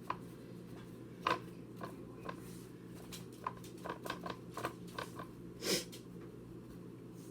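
Paper towels rustling and patting against raw chicken breasts as they are blotted dry: scattered soft taps and crinkles, with a longer rustle near the end, over a steady low hum.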